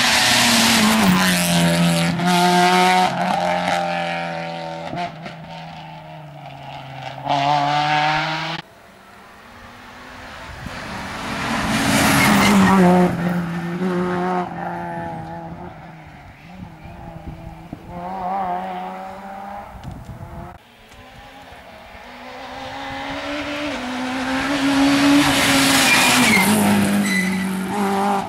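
Rally cars passing one after another at full attack, small front-wheel-drive hatchbacks such as a Peugeot 106 and a Citroën Saxo. Each engine revs hard and drops in pitch as the car brakes and changes gear. There are three passes, and the first two cut off suddenly.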